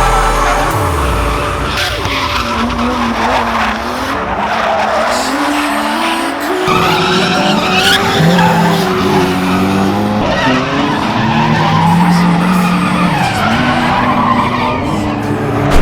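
Drift cars on track: engines revving up and down repeatedly over a steady haze of skidding, squealing tyres.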